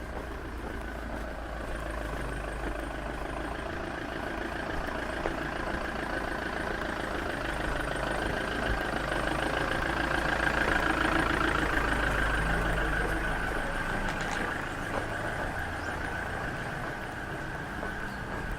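A motor vehicle's engine running nearby, growing louder to a peak about halfway through and then fading as it passes; the low rumble drops away near the end.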